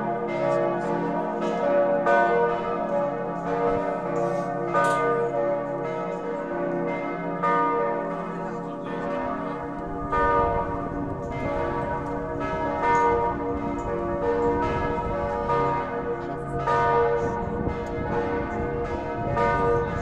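Full peal of church bells, several large bells struck over and over in overlapping rhythm, their tones ringing on and blending, heard from close by on the church tower.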